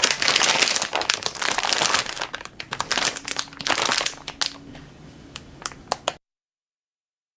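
Plastic marshmallow bags crinkling and rustling as they are handled and arranged on a table. It is dense for the first two seconds, then comes as sparser sharp crackles, and stops abruptly about six seconds in.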